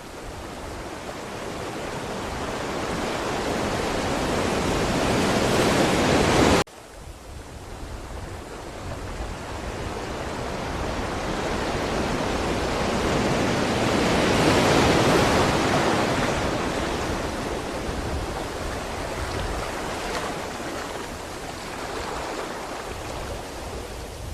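Ocean surf washing in: a wave swells for about six and a half seconds and cuts off suddenly, then a second wave builds to a peak about halfway through and slowly dies away.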